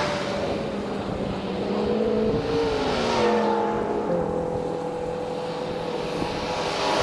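Cars passing by on a road one after another, the tyre and engine noise swelling and fading about three times, with engine tones sliding slowly down in pitch as each goes by.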